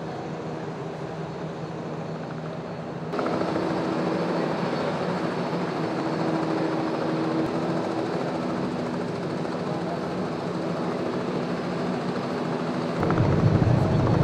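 Helicopter running nearby: a steady engine drone with a low hum, stepping up in level about three seconds in, with a deeper, louder rumble near the end.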